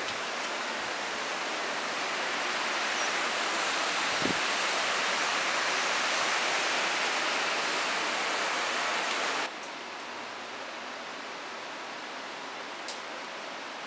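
Rushing water, a steady hiss that grows a little louder, then cuts off sharply about two-thirds of the way through to a quieter steady hiss.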